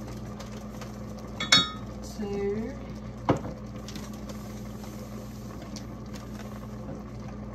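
Kitchen utensil sounds while sugar is added to a pot of strawberries for jam: a sharp metallic clink with a short ring about a second and a half in, then a knock about two seconds later, over a steady low hum.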